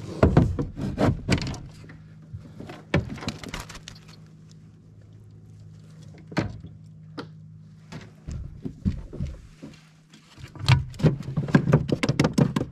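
Knocks, thuds and rattles of gear being handled aboard a plastic fishing kayak while a rubber landing net is lifted and moved, in a dense flurry at the start and again near the end, over a steady low hum.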